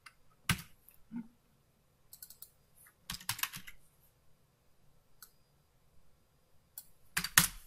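Computer keyboard typing: scattered single keystrokes and short flurries with pauses between, the loudest flurry near the end.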